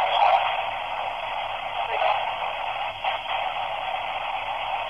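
S Box spirit box sweeping through radio stations: a steady, thin-sounding hiss of radio static, with faint brief snatches breaking through about two and three seconds in.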